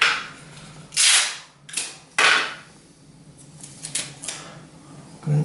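Clear sticky tape being pulled off the roll and torn, in several short rips, the loudest about a second and about two seconds in.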